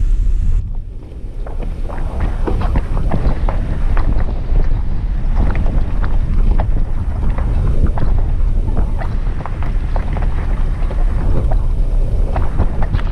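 Pickup truck driving on a rough gravel dirt road: tyres crunching over gravel and stones, with many short sharp ticks and crackles over a heavy low rumble of wind buffeting a microphone held out the side window.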